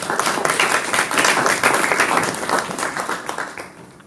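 Audience applauding, a dense patter of many hands clapping that dies away over the last second.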